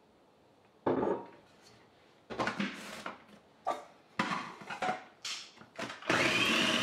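Plastic lid and pusher of a food processor knocking and scraping as they are fitted and twisted into place on the bowl, after a single knock about a second in. Near the end the food processor's motor starts, a steady run with a high whine, mixing cocoa into a sticky date-and-prune mass.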